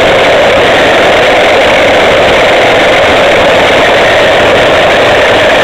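Radio-controlled camera car driving over bumpy asphalt: a loud, steady, rough noise of its motor, drivetrain and wheels, picked up by the camera's microphone on the car itself.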